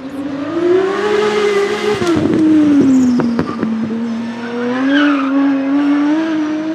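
Aston Martin Vulcan AMR Pro's naturally aspirated V12 revving as the race car drives by. The pitch rises, drops about two seconds in with a few sharp cracks, then climbs steadily again as it accelerates away.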